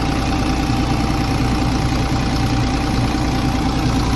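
Volvo EC210 excavator's diesel engine idling steadily, on a machine with black smoke and an injector fault under diagnosis.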